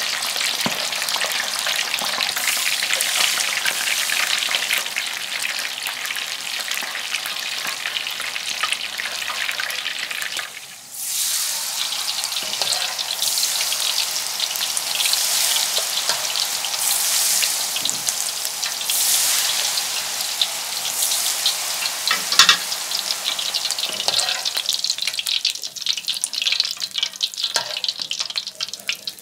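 Food sizzling and crackling as it fries, a dense steady sizzle that briefly drops away about eleven seconds in. Near the end it thins into more separate crackles.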